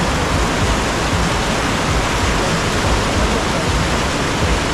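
Steady, loud rush of water from a small mountain waterfall.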